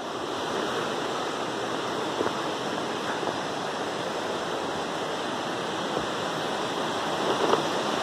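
Steady rushing of a waterfall and its rocky stream, an even roar of water without any change.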